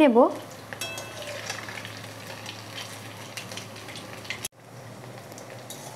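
Potato and shoti-starch fritters deep-frying in hot oil in a steel kadai, sizzling steadily while a metal spatula turns them. The sound breaks off for a moment about four and a half seconds in.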